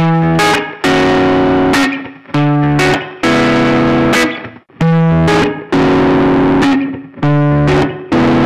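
Guitar riff of hard-struck, ringing notes and chords, about one a second, played loud through a digital distortion that uses a sigmoid transfer function. About halfway through, the same riff comes again through a software emulator that copies the analog fuzz circuit's frequency response.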